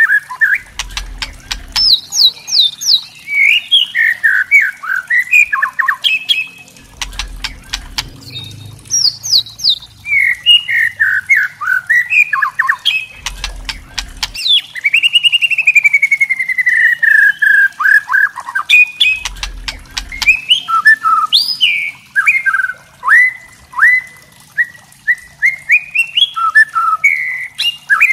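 White-rumped shama (murai batu) singing: quick runs of rising and falling whistled notes mixed with sharp, crackling rattle calls (kretekan). About halfway through comes one long, slowly falling whistle.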